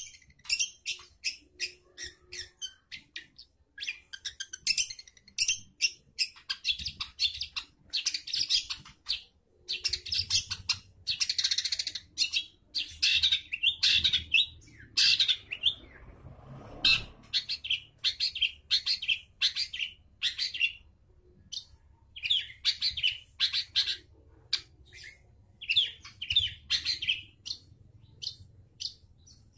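Caged long-tailed shrike (cendet) singing vigorously: rapid runs of short, high, chattering notes in bursts separated by brief pauses.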